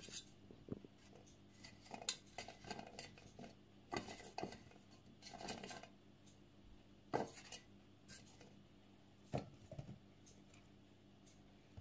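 Faint, scattered taps and clinks on a metal cake pan as apple slices are laid into it, with a few sharper knocks spread through.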